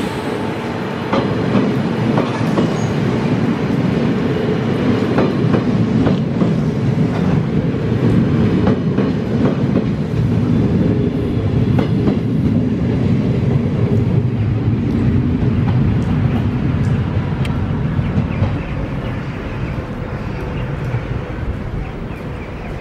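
NS DD-AR double-deck passenger coaches rolling past at close range as the train pulls out of the station, with a steady rumble and wheels clicking over rail joints. The noise eases a little near the end.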